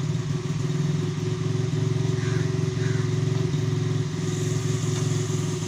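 Small motorcycle engine idling steadily, with an even, rapid firing pulse.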